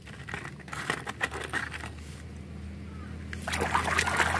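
Hand sloshing and splashing muddy water in a plastic basin while washing diecast toy cars. It starts with light knocks and trickling, and the splashing gets louder and denser about three and a half seconds in.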